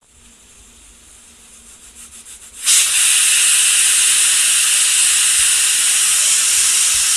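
Pressure cooker venting its steam in a steady hiss. It starts faint, then jumps suddenly loud about two and a half seconds in and holds. This is the cooker's pressure being let out after cooking so that the lid can be opened.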